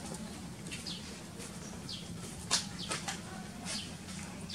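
Birds chirping: short, high, downward-sliding chirps scattered through, the sharpest a little past halfway, over a faint steady low hum.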